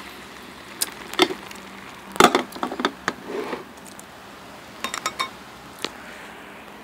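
A glass pot lid being set onto a pan, knocking and ringing briefly about two seconds in, among several lighter clinks and knocks of kitchen utensils and dishes, a cluster of them near five seconds.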